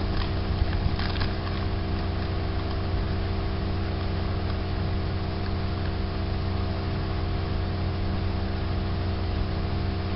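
Steady machine hum with several unchanging tones over a constant hiss, and a few light clicks in the first second or so.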